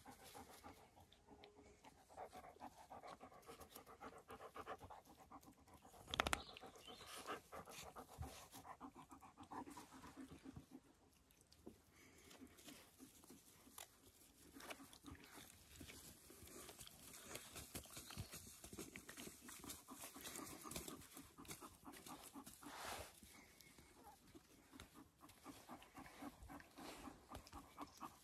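Faint panting of dogs with rapid small rustles of puppies playing in the grass, and one sharp knock about six seconds in.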